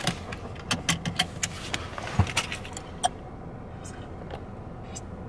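A quick run of clicks and rattles, like small metal parts or keys being handled, for about three seconds, then a few scattered clicks, over a low steady hum of the car cabin.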